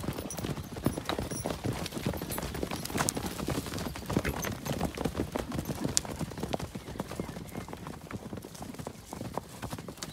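A herd of horses trotting and cantering along a dry dirt track, many hoofbeats overlapping. The hoofbeats thin out and grow quieter near the end as the herd moves off.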